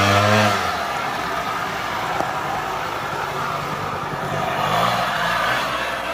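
Suzuki LT80 quad's small single-cylinder two-stroke engine revving up and easing off as it is ridden by near the start. It then keeps running at lower revs, less loud.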